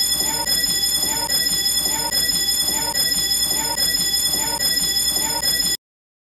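Fire alarm sounding a steady, piercing high tone, with a lower sound repeating about every 0.8 s beneath it; it cuts off abruptly near the end.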